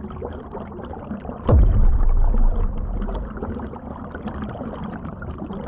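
Water sloshing and gurgling, muffled as heard by a camera under the water in an aquarium, as hands stir the dyed water. A loud dull thump with a low rumble comes about one and a half seconds in.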